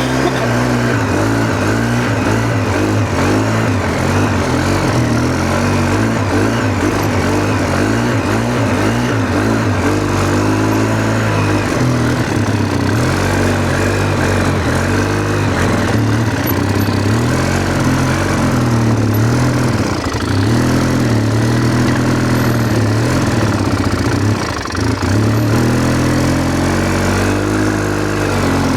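Polaris Sportsman 600 ATV engine running steadily, its pitch wavering slightly, with a brief dip in loudness late on.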